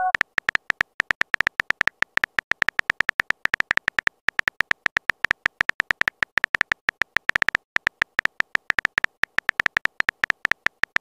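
Simulated keyboard typing clicks from the Texting Story app: a rapid, even stream of short clicks, about eight to ten a second, with brief pauses about four and seven and a half seconds in.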